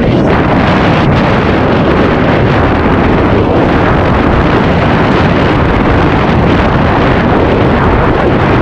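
Loud, steady wind noise buffeting a helmet-mounted camera's microphone at riding speed down a dirt trail, with no engine note.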